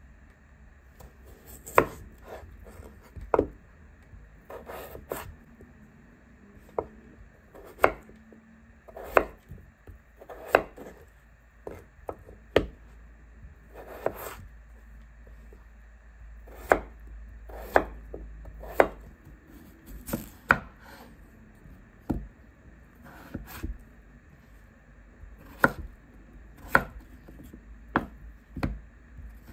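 Chef's knife cutting peeled raw potatoes into chunks on a bamboo cutting board, each cut ending in a sharp knock of the blade on the board, at irregular intervals of about a second.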